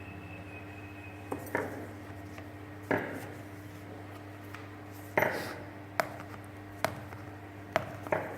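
Hands handling a phone's box and packaging, making about eight irregular knocks and taps over a steady low hum.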